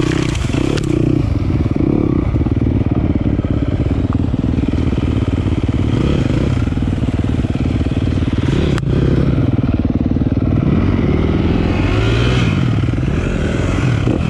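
Single-cylinder enduro dirt bike engine running on a rocky trail, its revs rising and falling as it is ridden, with clatter from the rocks. One sharp knock about nine seconds in.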